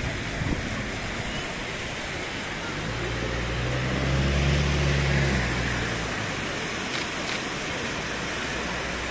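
Red hand-held flares burning with a steady hiss over low crowd murmur. A single sharp pop sounds about half a second in, and a low engine hum swells for a few seconds in the middle.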